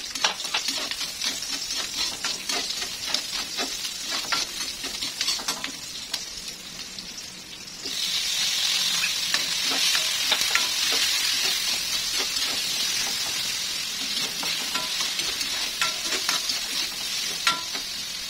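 Onion and garlic frying in hot oil in a stainless steel wok, with a metal spatula scraping and clicking against the pan as they are stirred. About eight seconds in, the sizzle suddenly grows louder and stays that way, as sliced tomatoes go into the oil, and the stirring goes on.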